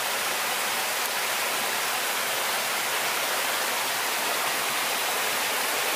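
Steady, even rushing of water, a continuous hiss with no distinct events.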